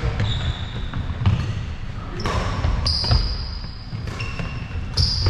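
Badminton rally: rackets strike the shuttlecock back and forth, about six sharp hits roughly a second apart, echoing in a large hall, with short high squeaks between some of the hits.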